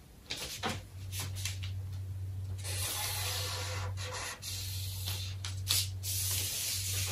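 Felt-tip marker drawing lines along a ruler on brown pattern paper: a scratchy rubbing in several long strokes, broken by a few light clicks as the ruler is shifted. A steady low hum runs underneath.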